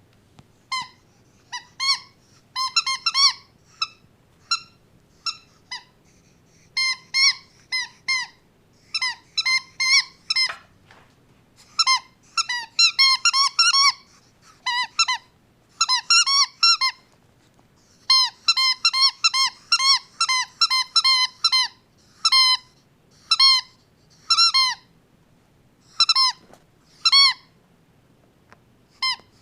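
Short, high-pitched squeaks, repeated in quick runs and clusters with pauses between them.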